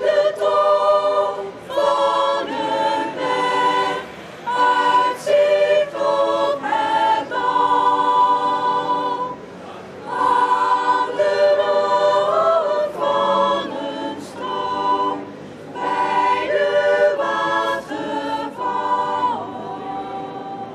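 Choir singing a cappella in phrases of a few seconds, with short breaks between them.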